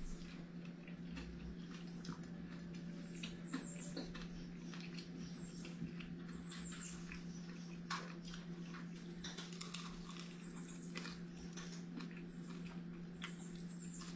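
Faint, scattered clicks and wet smacks of a man chewing and eating spicy chicken wings, over a steady low hum.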